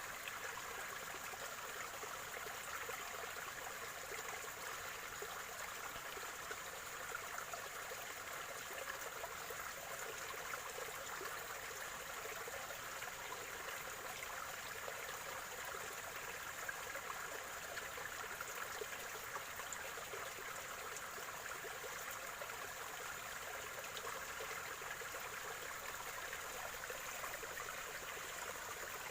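Small stream of spring water trickling and gurgling steadily.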